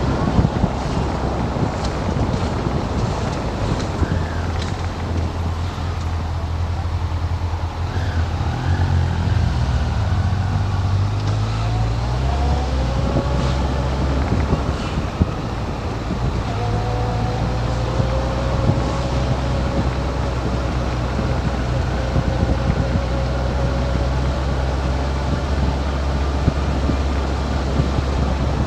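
Motorcycle engine running at low speed, heard from the bike itself; its note shifts about ten seconds in, then holds steady.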